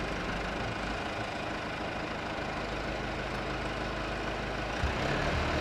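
An engine running steadily at idle, with a deeper steady hum coming in near the end.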